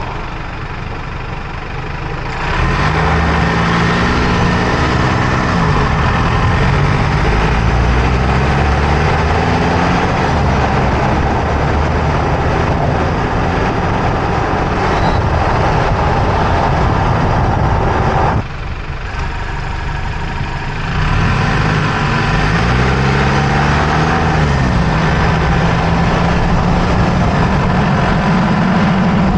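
2024 Toyota Tacoma's turbocharged four-cylinder engine and road noise heard from under the front of the truck while driving, with a steady roar throughout. The engine note climbs as the truck accelerates about two seconds in and again about twenty seconds in, after a brief let-off.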